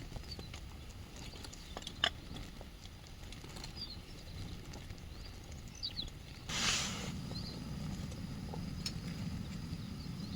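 Quiet outdoor ambience: a low steady rumble with a few faint chirps and light clicks, a sharper click about two seconds in and a brief rustle about six and a half seconds in.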